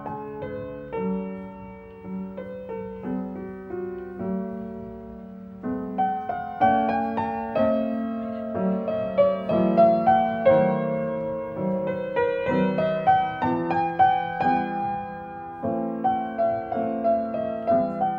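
Solo piano playing a classical piece: a flowing line of struck notes over held low notes, soft for the first few seconds, then louder from about six seconds in.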